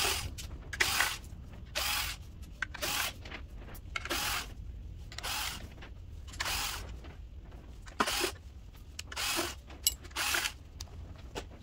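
Cordless drill-driver with a 10 mm socket running the bolts out of the BMW N62 V8's coolant cross-pipe cover. It runs in short bursts about once a second, with small metallic clicks between them.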